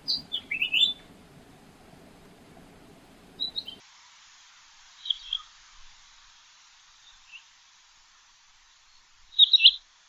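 Stubble quail (Coturnix pectoralis) calling in short groups of sharp, high whistled notes. A quick run of notes comes right at the start, softer scattered calls follow, and the loudest burst of three or four notes comes near the end, over a steady background hiss.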